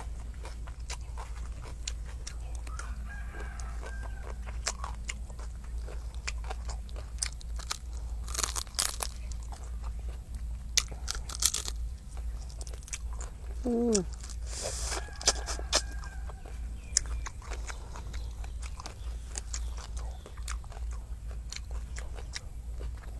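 Close-up crunching and chewing of food, with sharp clicks and short crunchy bursts, loudest about eight, eleven and fifteen seconds in. A chicken calls in the background a couple of times, once with a short falling cluck about fourteen seconds in.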